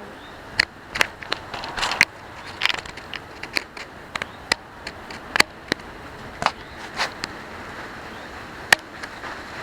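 Steady wind noise on the microphone, broken by about a dozen sharp, irregularly spaced clicks and knocks.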